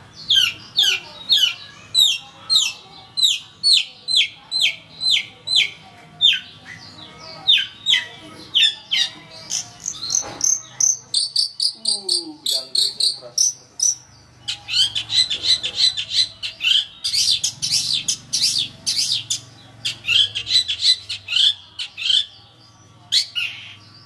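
Long-tailed shrike (cendet) in full, varied song. It opens with a run of sharp falling notes, about two to three a second. About ten seconds in it turns to higher, quicker phrases and then a fast, dense chatter.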